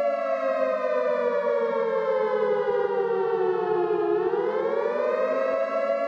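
Civil defense warning siren sounding a chord of steady tones that slides slowly down in pitch for about four seconds, then climbs back up.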